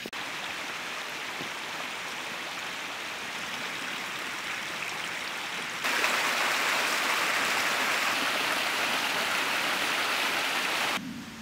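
Running water from a stream, a steady rushing noise. It jumps abruptly louder about six seconds in and cuts off suddenly near the end.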